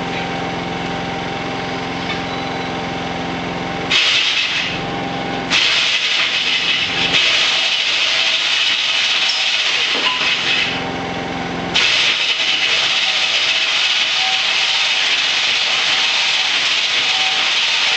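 The giant robot's motor-driven mechanism under test, swinging a long steel pipe arm. It starts as a steady hum, then a loud harsh rasping noise breaks in about four seconds in, drops back to the hum briefly near eleven seconds, and returns.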